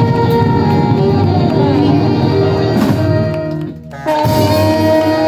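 Live band with horns playing the close of a song: long held chords, a brief break about four seconds in, then a final held chord.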